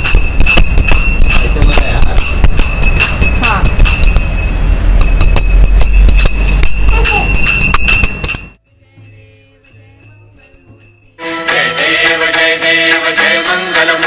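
A puja bell rung rapidly and continuously for the aarti, a dense metallic ringing. About eight and a half seconds in it stops abruptly. After a short quiet gap, aarti music starts up with many held notes and a beat.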